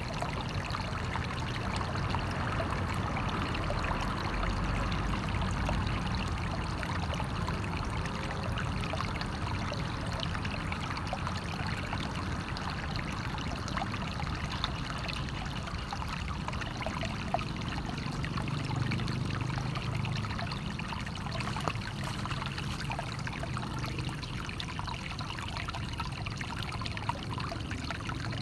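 Water flowing steadily, a continuous splashing and trickling with many small gurgles.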